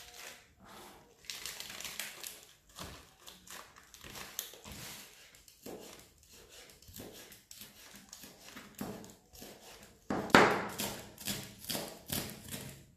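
Chef's knife slicing lettuce leaves into thin shreds on a plastic cutting board: a run of crisp cuts, each tapping on the board, with a faster, louder spell of cutting in the last few seconds.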